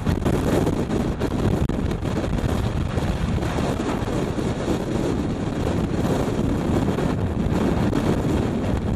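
Antarctic blizzard wind of 40 to 60 knots buffeting the microphone: a loud, unbroken rush of noise.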